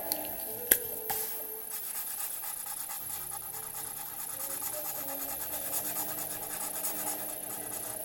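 A drawing tip scratching and rubbing across paper as lines are drawn, with a couple of light taps about a second in.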